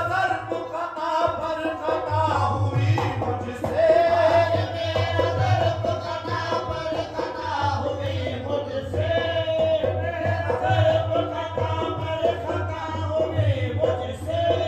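Qawwali music: a harmonium melody over a hand drum, with sung vocals and hand-clapping from the chorus.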